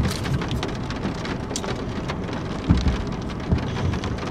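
Steady rain falling on the car, heard from inside the cabin as a constant hiss of fine drop ticks. A few short low thumps stand out, about two and three and a half seconds in.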